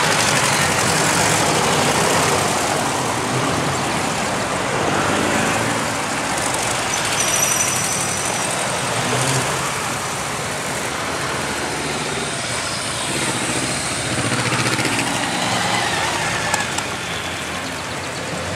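A procession of trikes and motorcycles riding slowly past one after another, their engines running at low speed. The engine noise overlaps continuously and swells and fades gently as each machine goes by.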